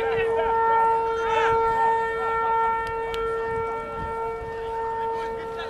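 A long, steady horn tone held at one pitch without a break.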